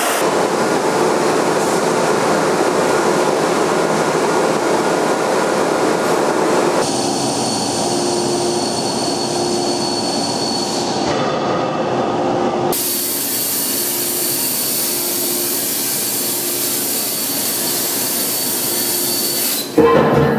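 Steady industrial machine noise from a structural steel drilling, sawing and coping line. The noise changes character abruptly several times and gets briefly louder near the end.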